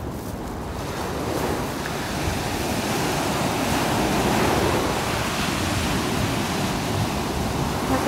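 Small sea waves breaking and washing up a sandy beach in a steady hiss of surf, swelling to its loudest about halfway through.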